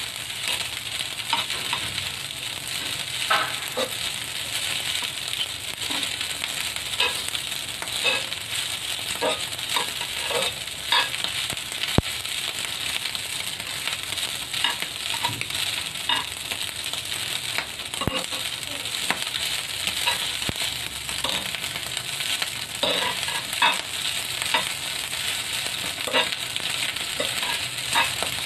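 Fried rice sizzling in a cast-iron pan while a metal spoon stirs and scrapes it, with frequent clinks of the spoon against the pan and a couple of sharper knocks.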